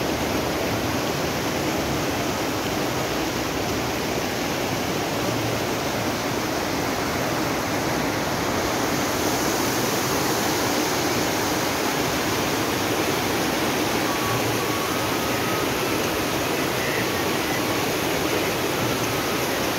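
Fast-flowing mountain river rushing over boulders and rocks: a steady, unbroken water noise.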